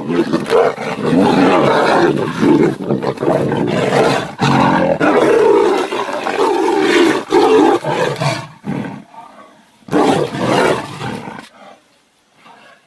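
Two tigers fighting, roaring loudly and almost without a break for about eight seconds. After a short lull there is one more burst of roaring about ten seconds in, and then it dies away.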